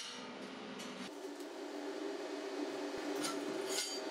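Steel plate knocking against the jaws of a steel bench vise as it is set and clamped: a sharp click at the start and a few short metallic clinks about three seconds in, over a steady hum.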